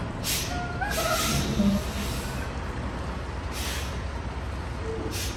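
Semi-truck's diesel engine running with a steady low rumble while the rig backs slowly, broken by four short hisses of air from the air brakes.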